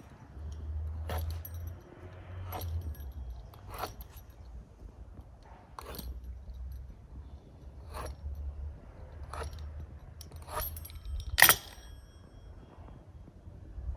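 Metal fluted pastry wheel clicking and scraping against a stone slab as short cuts are pressed into the edge of rolled dough, about one click every second or two, over a low rumble. A louder clack a little after eleven seconds is the cutter being set down on the slab.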